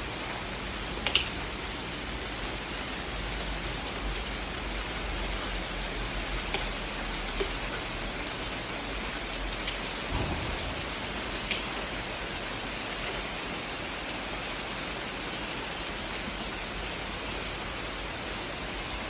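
Steady rain falling, an even hiss with a few louder single drips now and then.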